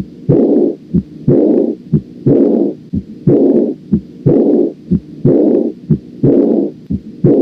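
Heart auscultation recording: heart sounds beating about once a second, each beat carrying a loud whooshing murmur. It is presented as the early diastolic decrescendo murmur of aortic regurgitation.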